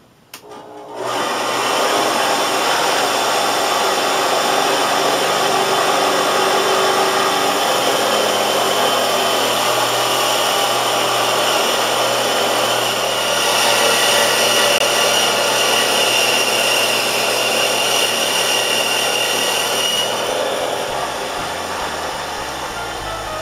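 Studio Pro Precision 2000 band saw switched on with a click, its motor and blade coming up to speed within about a second and running steadily while a mitre cut is made through a block of wood. A higher whine comes in for several seconds in the middle. Music comes in near the end.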